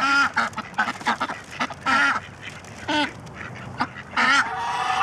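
Ducks calling in a string of short, harsh calls, the loudest about two seconds in and again near the end.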